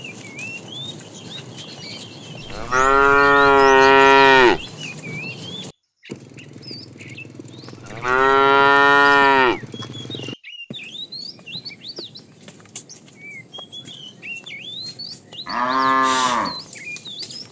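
Cows mooing: three long, low moos, the first two about two seconds each and the last one shorter. Short high chirps keep up in the background throughout.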